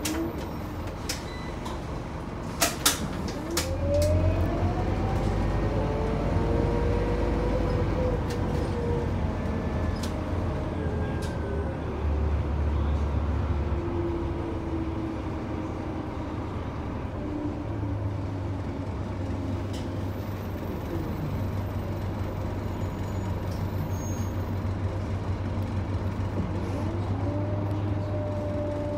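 Scania K94UB bus's 9-litre six-cylinder DC9 diesel with its ZF five-speed automatic gearbox, running under way. A few sharp clicks come near the start. From about four seconds in the engine pulls harder with a rising whine, then settles into steady running.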